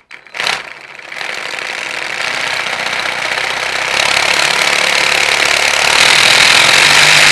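Model engine kit being spun up to very high speed: a dense mechanical whirring clatter that grows steadily louder, after a couple of short knocks as it starts.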